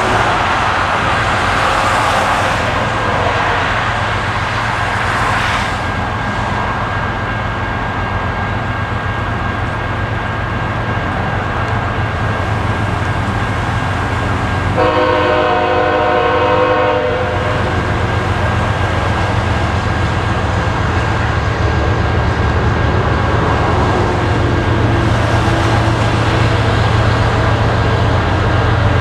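Diesel locomotives of an approaching freight train rumbling steadily, led by a GE ES44C4. About fifteen seconds in, the lead locomotive's multi-tone air horn sounds one blast of about two seconds.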